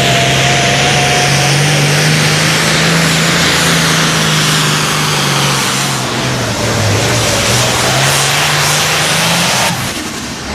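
International Super Farm pulling tractor's turbocharged diesel engine running loud and flat out under load on a full pull. Its pitch dips briefly about seven seconds in, and the sound drops away shortly before the end.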